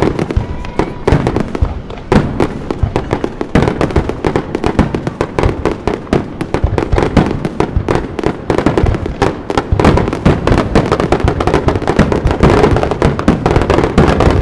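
Fireworks display: a rapid, continuous barrage of shell bursts and crackling, many bangs a second, growing denser in the last few seconds.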